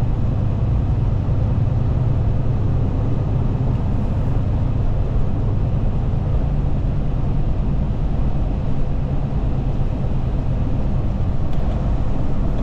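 Steady low rumble of a heavy truck's engine and road noise heard from inside the cab, unchanging while it moves slowly in traffic.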